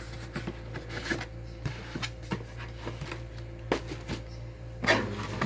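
Cardboard shoe boxes being handled and shifted: scattered taps, knocks and cardboard rubbing, with a couple of louder knocks in the second half.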